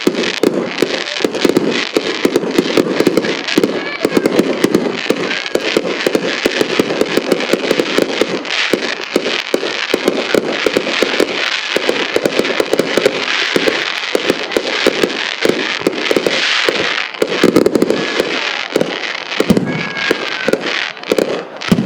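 Fireworks bursting in a dense, unbroken barrage: many sharp reports and crackles every second, with no pause.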